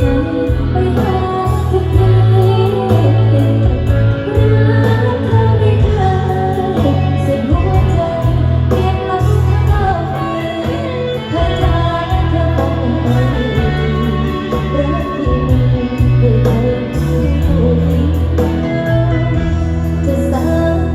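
Music played loud over a PA system during a sound check: a singing voice over guitar, with heavy, pounding bass.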